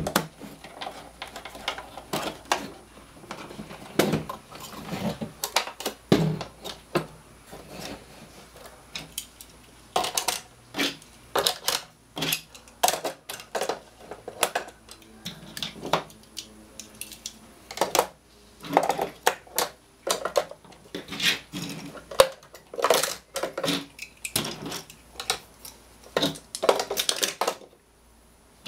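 Hot Wheels die-cast toy cars being put into the hard plastic compartments of a Thomas the Tank Engine carry case: many irregular clicks and clacks of metal on plastic, which stop shortly before the end.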